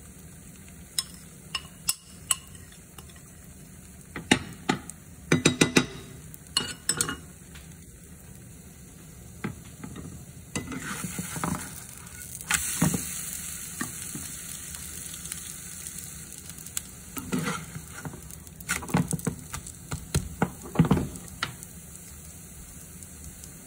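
Green onion crepe batter frying in a nonstick pan with a steady sizzle, while a metal spatula scrapes and taps against the pan in short clusters, loosening and flipping the crepe. The sizzle grows louder about halfway through, as the crepe is turned.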